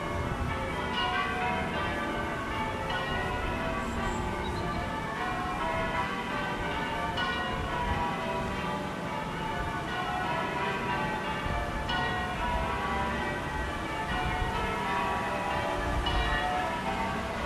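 Church bells ringing, many overlapping bell tones struck one after another, over a low rumble.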